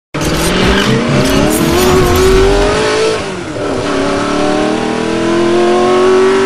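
Car engine sound effect accelerating hard: the pitch climbs, drops at a gear change about three seconds in, then climbs again.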